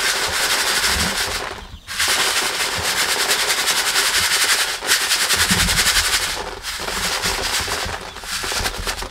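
Dry granules poured from a plastic bowl into a plastic chick feeder tray, a dense rattling patter of grains hitting plastic that pauses briefly about two seconds and five seconds in.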